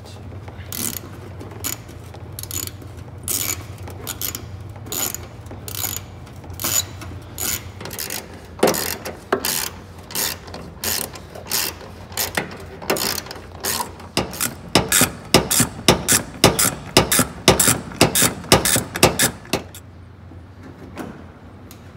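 Hand ratchet with a 10mm socket clicking as bumper screws are driven back in: scattered clicks at first, then a fast run of about four or five clicks a second in the second half, which stops near the end.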